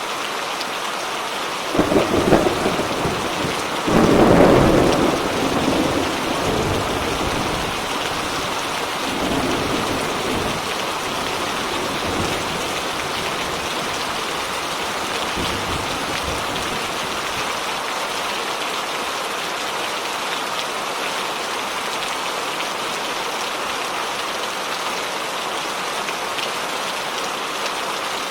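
Steady heavy rain with thunder: a sharp crack of thunder about two seconds in, then a louder rolling rumble that dies away over several seconds, with fainter rumbles after it.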